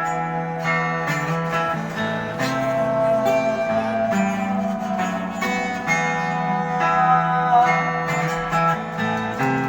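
Guitar strumming chords in a steady rhythm: an instrumental stretch of a live song.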